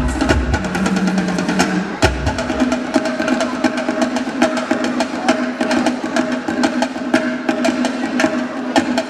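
Percussion-led music: many quick, sharp wooden-sounding clicks and knocks over held tones, with a few deep bass hits in the first two seconds.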